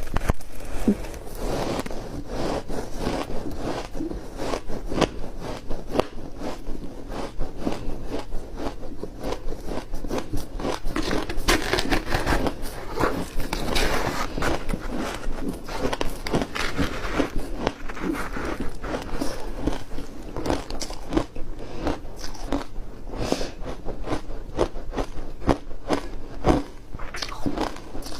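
Close-miked biting and chewing of soft, frozen matcha tea ice: a dense run of crisp crunches and crackles.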